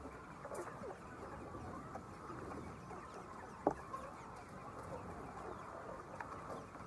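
Many chickens clucking and calling together in a poultry house, a steady busy chatter with one sharper, louder sound a little past halfway.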